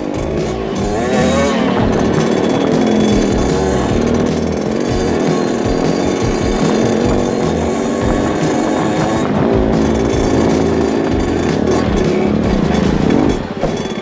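Trail motorcycle engines running as they ride, the revs rising and falling, with wind buffeting the microphone.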